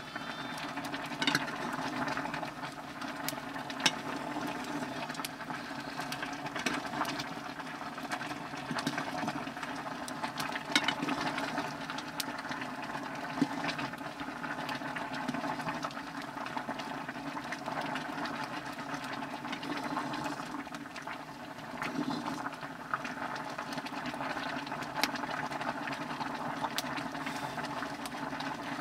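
Mushroom curry simmering steadily in a blackened pot over a wood fire while being stirred with a metal spoon, with scattered sharp clicks throughout.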